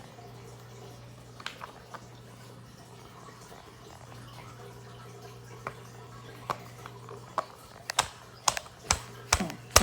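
Sharp plastic clicks and taps from the snow globe's battery compartment as AAA batteries are worked out by hand, scattered at first and coming faster in the last few seconds, over a steady low hum.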